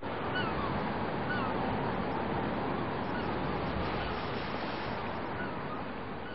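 Steady wash of sea surf, with a few short bird calls over it.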